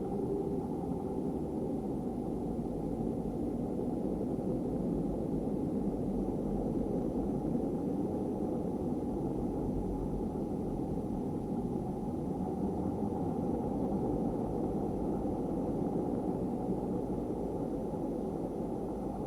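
Steady, muffled noise, deep and even, with no rhythm, pitch or breaks: an ambient "sound of Saturn" space soundscape.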